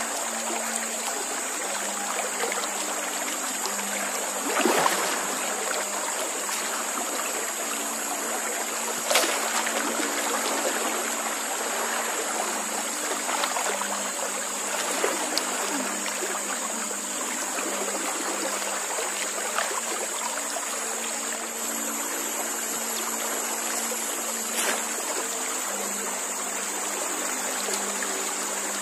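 River water running in the current, a steady rushing hiss, with a few brief sharp splashes or knocks about 5, 9 and 25 seconds in. A steady high-pitched hum sits over the water.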